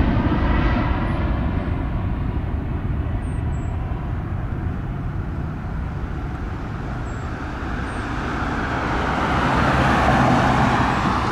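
Jet aircraft engines roaring on takeoff, the sound fading away over the first couple of seconds. A second swell of rushing engine noise then builds and peaks near the end.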